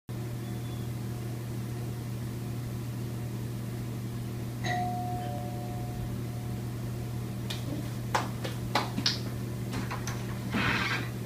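A steady low hum throughout. About five seconds in, a two-note doorbell chime rings, a higher note then a lower one. Several sharp clicks and knocks follow, the loudest sounds here, then a short rustle near the end as the front door is handled.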